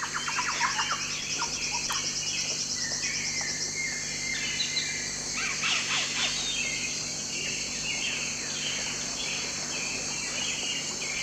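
Wild birds calling in a chorus of short chirps and quick falling notes that overlap throughout, with a fast, high ticking trill during the first few seconds.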